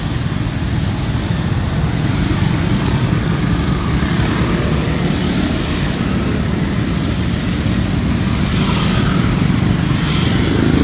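Steady engine and road noise from a moving motorcycle, heard from its pillion seat: a continuous low rumble with tyre hiss on a wet road.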